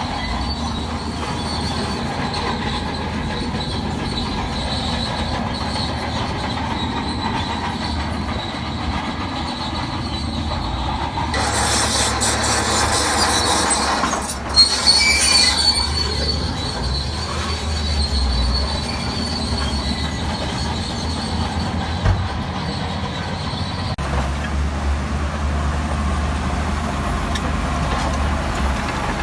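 Crawler bulldozer working: the diesel engine runs under a steady squealing and clanking from the steel tracks, with a single sharp clank about fifteen seconds in.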